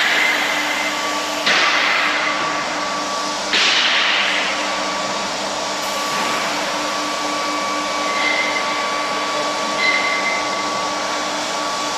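Medium-frequency induction heating furnace running while it heats steel tube pieces: a steady hiss with steady whining tones. Twice in the first four seconds a louder hiss surges in suddenly and fades.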